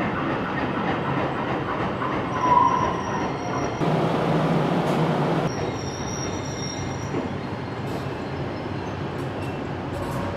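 Subway train running along the track in an underground station, a steady noise with a short wheel squeal about two and a half seconds in.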